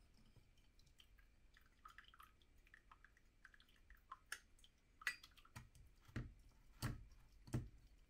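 Brewed coffee dripping from a paper filter in a pour-over cone into the mug below: faint scattered ticks at first, then a few distinct drips, the three loudest in the last two seconds.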